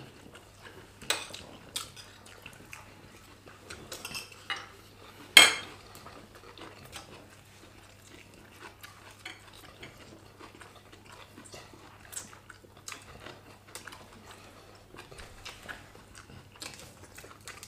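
Metal forks and knives clinking and scraping against ceramic dinner plates as two people eat, in irregular short clicks, with one loud clink about five seconds in.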